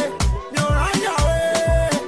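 Afrobeat-style music with a heavy kick-drum beat about four times a second and held melody notes, without vocals at this point.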